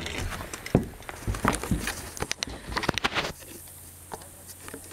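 Boots scuffing and knocking on wooden deck boards, with handling noise from a camera held close, in a run of irregular knocks and clicks that stops after about three seconds.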